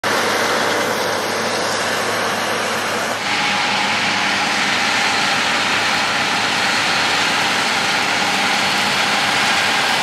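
John Deere X9 1100 combine harvester running steadily while harvesting wheat. About three seconds in, the sound shifts and takes on more hiss.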